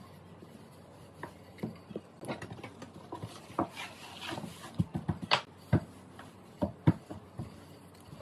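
Wooden rolling pin and hands working a soft cocoa dough on a floured countertop: irregular knocks and taps as the pin meets the counter, with a short rubbing, scraping sound near the middle.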